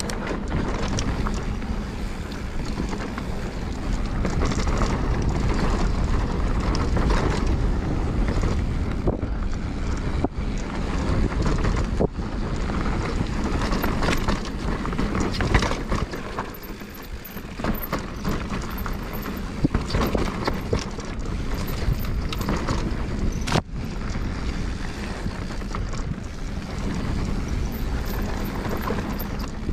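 Wind buffeting the microphone of a camera riding along on a mountain bike on a dirt trail, with a steady low rumble. Frequent sharp knocks and rattles come through it as the bike goes over rough ground.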